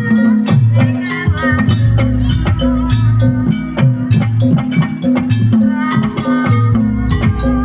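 Javanese gamelan ensemble playing a fast gending srampat (sampak) for jaranan: dense kendang drum strokes drive over ringing bronze metallophones and gongs.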